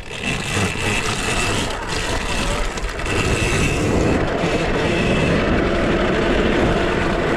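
A KTM SX-E5 electric mini motocross bike being ridden on a dirt track: a steady high motor whine under loud rushing noise and rattle. The noise builds just after the start and again about three seconds in.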